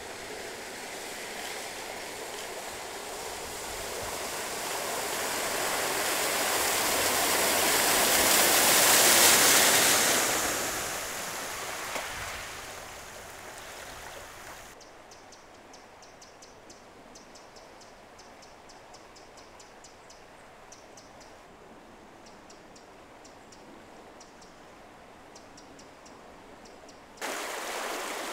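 An SUV driving through deep floodwater on a road, its wheels sloshing and spraying water, getting louder as it approaches and passes about nine seconds in, then fading away. After a quieter stretch with faint ticking, there is an abrupt switch near the end to the steady rush of fast-flowing floodwater.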